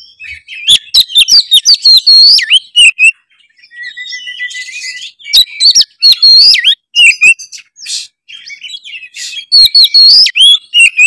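Oriental magpie-robin singing vigorously. It gives three outbursts of rapid, varied whistled phrases mixed with sharp clicks, with a thin held whistle between the first two.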